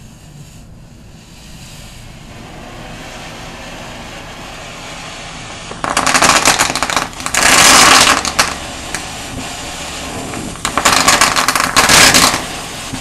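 Ground fountain firework hissing, the hiss growing over the first few seconds. About six seconds in it breaks suddenly into loud, dense, rapid crackling, strongest in two spells.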